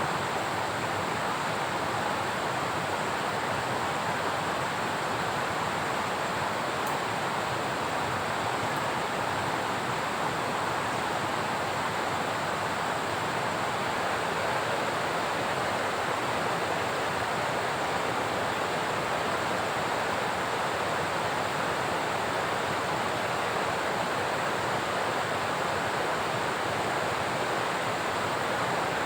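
Steady, unbroken rushing of water, an even wash of noise with no distinct drops or splashes.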